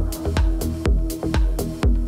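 Electronic background music with a steady, quick beat and heavy bass.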